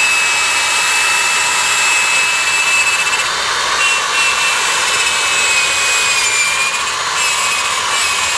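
Corded electric drill running at speed, spinning a 3M restoration pad pressed hard against an alloy car wheel: a steady high whine over a rubbing hiss, dipping slightly in pitch a few times.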